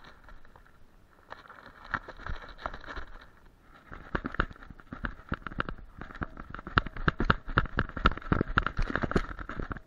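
Dense, rapid crackling and thuds, picked up by a camera on a German Shepherd's harness as the dog runs and tussles through dry heather and grass. It is sparse at first and busiest from about four seconds in.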